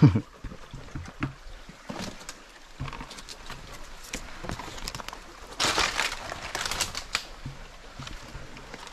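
Dry palm fronds rustling and crackling close by, with scattered clicks and snaps and a louder burst of rustling about six seconds in.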